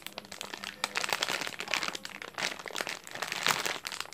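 Clear plastic bag crinkling as hands grip and turn the squishy toys inside it: a run of irregular crackles.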